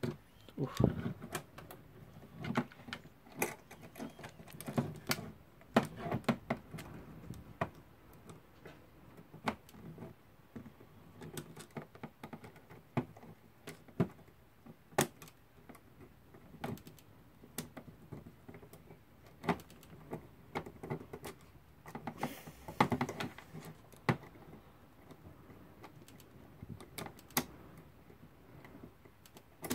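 Ratchet click of a Haller alarm clock movement snapping against its ratchet wheel as the mainspring is let down step by step with a screwdriver: irregular sharp metallic clicks, about one a second, with a brief denser run of rattling clicks about three-quarters of the way through.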